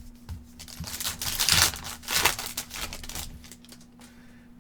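Trading card pack wrapper being torn open and crinkled, a few rustling, crackling bursts over about two seconds, as the next pack of cards is opened.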